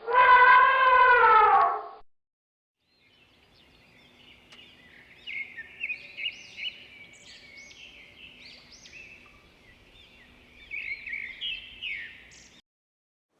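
A songbird singing a long run of quick, high chirps and short trills. It is preceded by the last two seconds of a loud, drawn-out animal call that falls in pitch.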